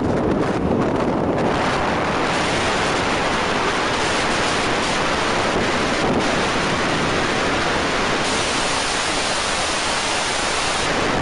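Steady wind rush buffeting a microphone mounted outside a moving Mercedes-Benz SLK350, mixed with tyre and road noise; the rush grows fuller about two seconds in.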